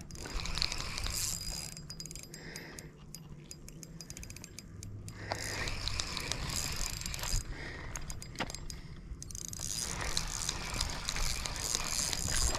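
Spinning reel being cranked to retrieve line, its gears whirring and clicking in spells with short pauses between.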